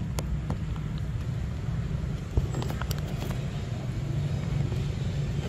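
Steady low outdoor rumble with a few faint scattered clicks.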